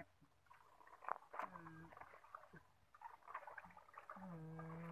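Faint, distant voices in short fragments, with one long drawn-out call near the end.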